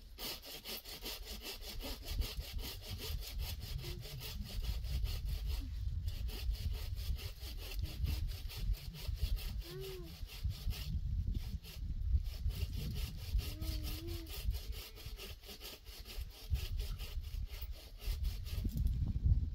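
Rapid, even scraping strokes, like a blade or saw working across wood, broken by short pauses about six and eleven seconds in.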